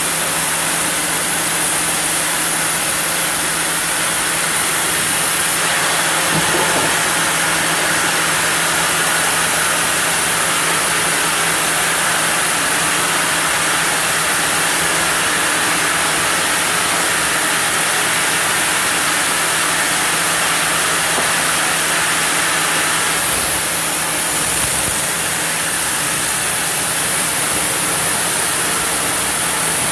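Sawmill saw running steadily through a block of zelkova: a loud, even machine noise with a constant low hum underneath.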